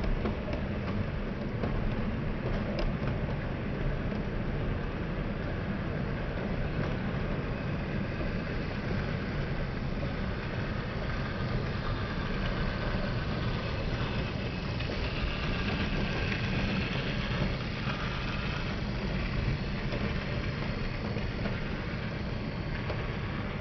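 OO gauge model class 37 diesel locomotive and coaches running past on the track: a steady rumble of the motor and wheels on rail, with a faint squeal for a few seconds midway.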